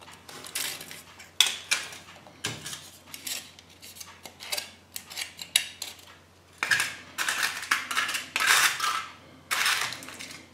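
Kinder Surprise chocolate egg being handled and unwrapped: the foil wrapper crinkling, with sharp clicks and rattles, busiest in the last few seconds.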